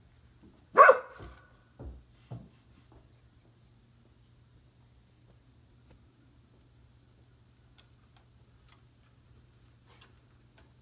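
A dog barks once, loud and short, about a second in, followed by a few softer, briefer sounds; after that it is quiet.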